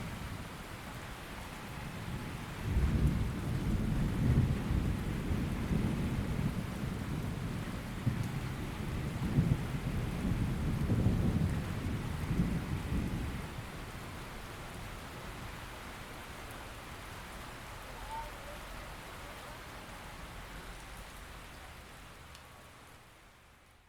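Steady rain falling, with a long rolling thunder rumble that swells a few seconds in and dies away about halfway through. The sound fades out sharply near the end.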